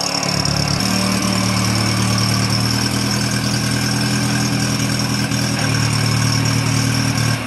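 Satoh S650G tractor's four-cylinder engine running steadily at low speed. It gets louder and fuller about a second in, then holds an even drone.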